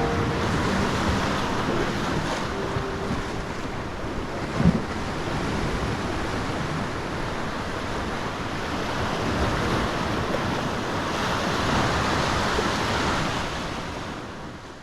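Ocean surf washing onto the shore, with wind buffeting the microphone and one short thump about four and a half seconds in. The sound fades out at the very end.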